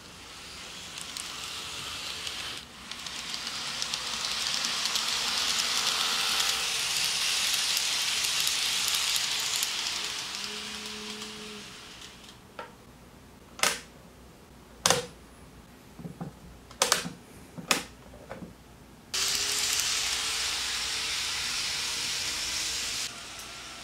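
Kato N-scale model train running on its track, a small-motor whirr and wheel hiss that swells and fades as it passes close by. Then comes a string of about seven sharp clicks, and near the end the whirr cuts back in abruptly for a few seconds.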